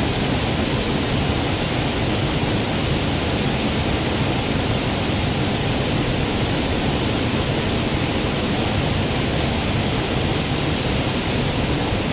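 Waterfall in the forest, its water rushing steadily and loudly without a break.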